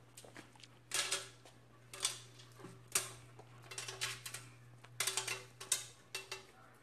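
Gloved hands rubbing seasoning into a raw turkey in a roasting pan: short bursts of rustling and clicking, about one a second, over a low steady hum.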